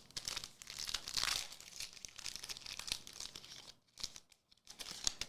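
Foil trading-card pack being torn open and its wrapper crinkled in the hands, a dense crackling for about four seconds, then a few shorter crinkles.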